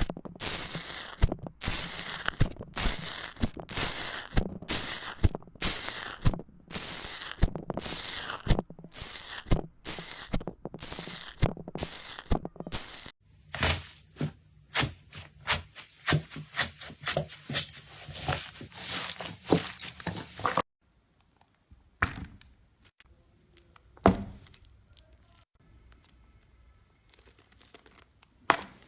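Slime being squeezed and pressed by hand, with a regular run of crackling squishes about one and a half a second. Then comes faster crackling and popping, which cuts off suddenly about two-thirds of the way in, leaving only a few soft clicks and one louder pop.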